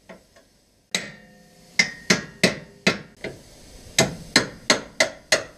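Hammer blows on steel at a car's rear suspension, about a dozen sharp strikes at roughly three a second, one leaving a short metallic ring, as a suspension arm is knocked back into place.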